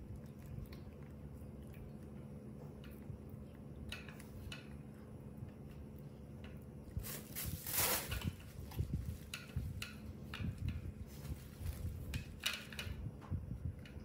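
Small clicks and scrapes of a metal spoon in a plastic yogurt cup while a baby macaque eats yogurt from it, with a louder brief noise about eight seconds in. A faint steady hum runs underneath.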